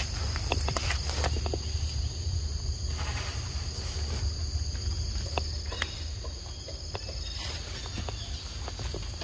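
Steady high-pitched drone of insects, with scattered short clicks and rustles close by and a low rumble underneath.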